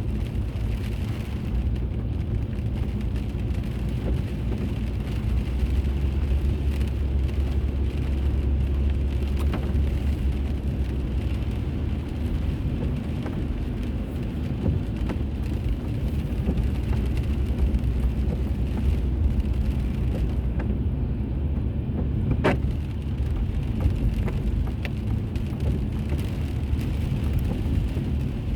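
Steady low road and engine rumble of a car driving, heard from inside the cabin through a dashboard camera. A single sharp click about three-quarters of the way through.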